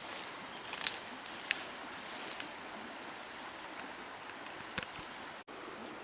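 Rustling leaves and branches, with several sharp twig cracks, as someone pushes through dense brush.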